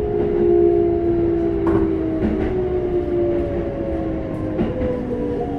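Keikyu 600 series electric train's Toyo GTO-VVVF inverter whining from inside the car, several tones sliding slowly down in pitch over the running rumble as the train slows, with a few clicks from the wheels over the rails.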